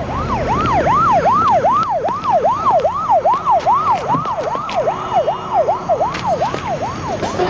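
Emergency-vehicle siren in a fast yelp, its pitch sweeping up and down about three times a second, over a low street hum.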